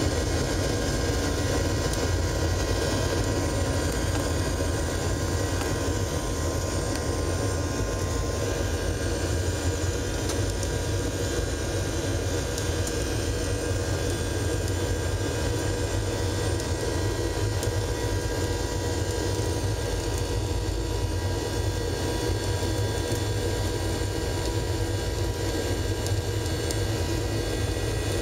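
Boeing 737-800 cabin noise while taxiing: its CFM56-7B jet engines run at low, steady thrust. A steady low rumble carries several faint, unchanging whining tones above it.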